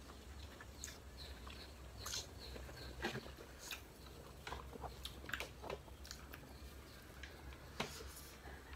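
Quiet eating sounds: chewing and lip smacks, with scattered light clicks of fingers picking at fish and rice on plates, over a faint steady low hum.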